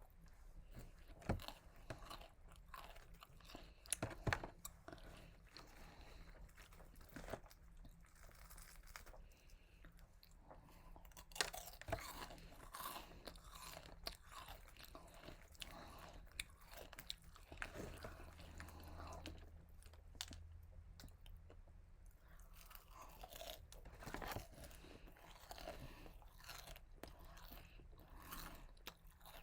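Close-miked eating of KFC fried food: faint chewing broken by crisp crunches of the breading, louder bites about a second in, around four seconds, and near twelve seconds.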